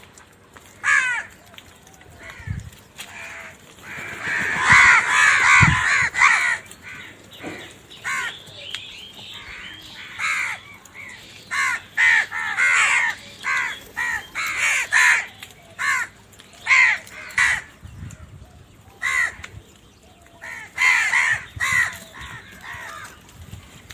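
Many crows cawing, harsh calls repeating and overlapping, with several birds calling at once about four to six seconds in.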